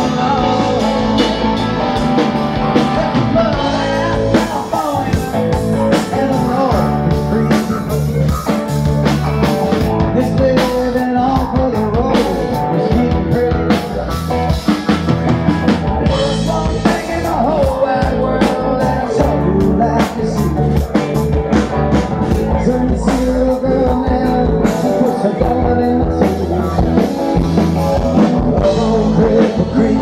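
A live rock band playing: electric guitar, drum kit and an Alesis keyboard, with a man singing.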